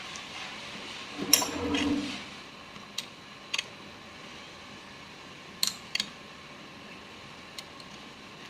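Light metal clatter and a few sharp clicks as a part is put back on a sewing machine with its screw and a screwdriver. The loudest is a short rattling knock with a brief ring, about a second in.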